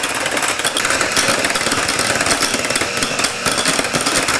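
Electric hand mixer running steadily, its beaters whipping mashed potatoes in a metal saucepan, a motor whir with a fine rattle.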